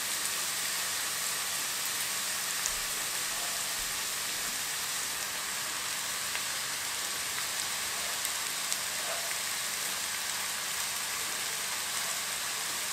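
Steady sizzle of onions and green chillies frying in hot oil in a pan while handfuls of chopped red amaranth leaves are dropped in, with a few faint ticks.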